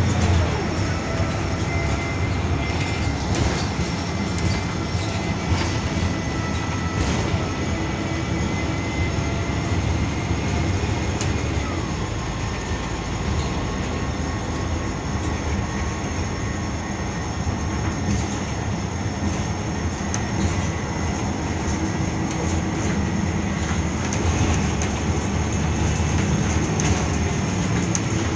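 Inside a Volvo B12BLEA articulated bus under way: the diesel engine and driveline running steadily, with road noise and interior rattle. A faint whine drifts slowly up and down in pitch as the bus changes speed.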